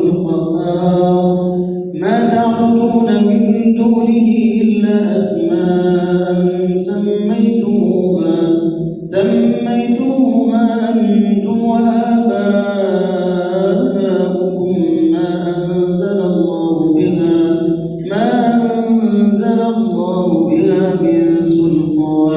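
A man reciting the Quran in a melodic, drawn-out chant, holding and ornamenting long notes. Short breaks for breath come about 2, 9 and 18 seconds in.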